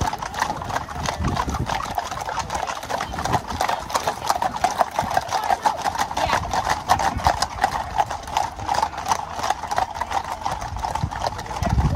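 Hooves of many horses clip-clopping on a wet tarmac road as a group of ridden horses trots past: a dense, continuous run of overlapping hoofbeats.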